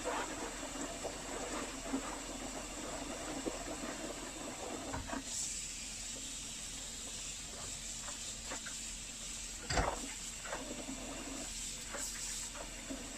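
Water running and sloshing as dirty vacuum-cleaner filters are washed in soapy, foamy water, with a steady hiss and a few light clicks. A sharper knock comes about ten seconds in.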